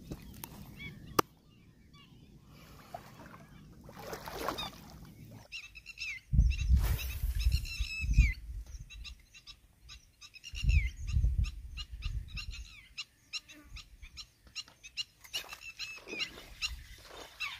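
Birds calling in quick runs of short, high notes, over low gusts of wind buffeting the microphone.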